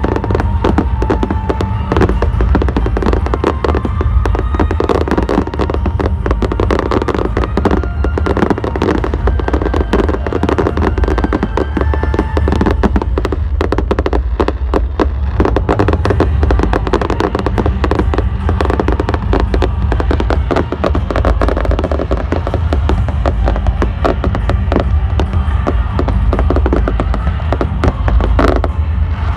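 Fireworks going off in rapid, continuous succession, dense bangs and crackling with no pause, while music with held melodic notes plays along.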